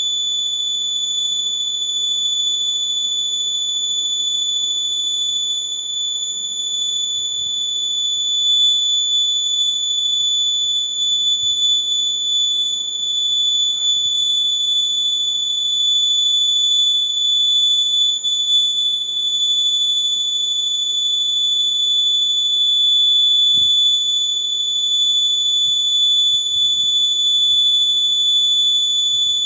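Piezo buzzer sounding a continuous, steady high-pitched tone.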